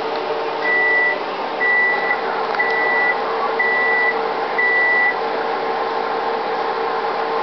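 An electronic beeper sounds five identical high beeps, each about half a second long and about a second apart, over a steady background hum.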